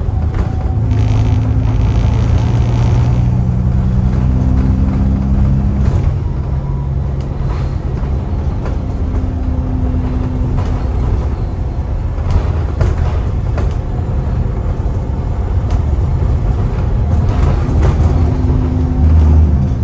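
Alexander Dennis Trident/Enviro400 double-decker bus heard from inside the passenger saloon while under way: a steady low engine and exhaust rumble with road noise, the engine note changing pitch a few times. The exhaust is blown.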